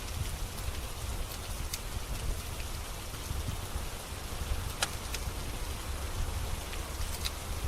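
Steady rain with a low rumble underneath, joined by a few sharp crackles and pops from a wood fire burning in a fireplace.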